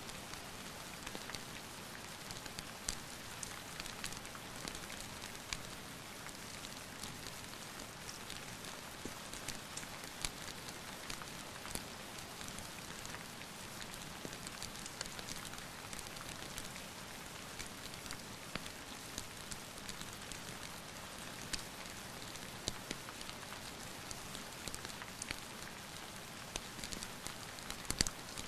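Steady rain falling, an even hiss with many small sharp clicks scattered through it, mixed with the crackle of a wood fire in a fireplace.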